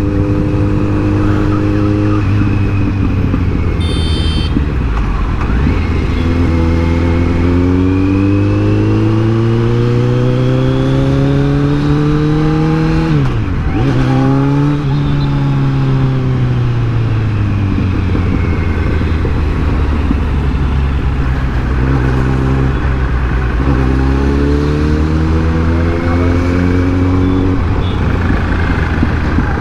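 Kawasaki Z900's inline-four engine running under way, its revs climbing slowly, dipping sharply about halfway through, falling away, then climbing twice more. A short high beep about four seconds in.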